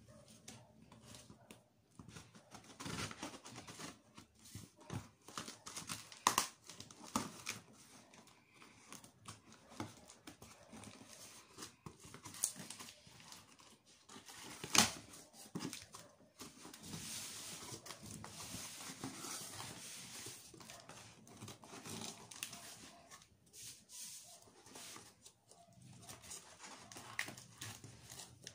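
Scissors slitting the packing tape along a cardboard box's seam, with irregular scrapes, clicks and crinkling of cardboard and plastic wrap.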